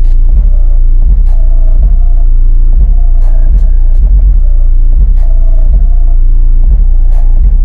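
Kicker Solo-X 18-inch subwoofer, driven by a Rock Series 1400 W RMS amplifier, playing a song's deep bass very loud inside the car cabin, the bass overloading the recording. Scattered sharp ticks sit over it.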